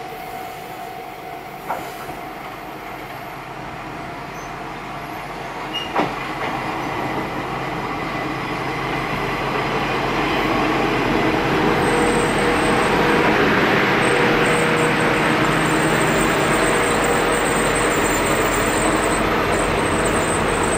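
JR Kyushu KiHa 31 diesel railcar pulling into the station, its engine and running noise growing louder as it comes alongside, then holding loud and steady close by. Two sharp clicks, about 2 and 6 seconds in.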